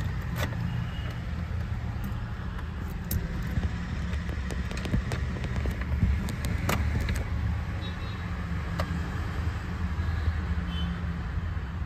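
Steady low engine hum, with scattered light clicks and a jingle of keys as the ignition key is handled in a Mahindra Thar.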